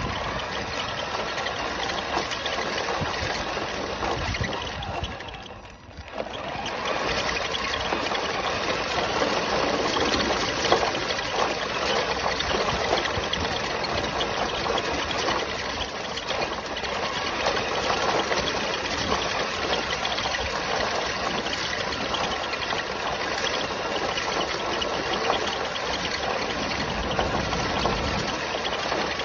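Onboard sound of an RC pickup truck driving on a gravel road: a steady rushing noise of its tyres rolling over gravel and its running drivetrain, heard from a microphone riding on the truck. The noise dips briefly about six seconds in, then picks up again.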